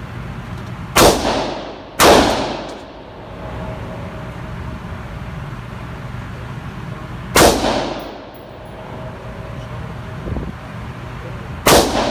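Four single gunshots, each with a short echoing tail. The first two come about a second apart, and the others follow at gaps of roughly four to five seconds.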